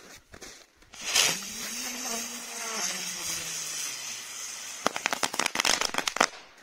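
Ground firework burning: it ignites suddenly with a rushing hiss that carries a low, slowly falling tone, then ends in a rapid string of crackling pops that cuts off.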